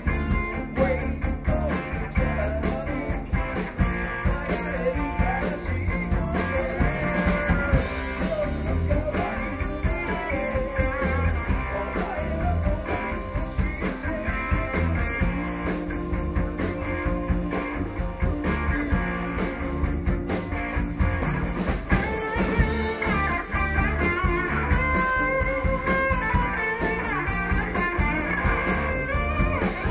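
A rock song with guitar and a singing voice over a steady beat.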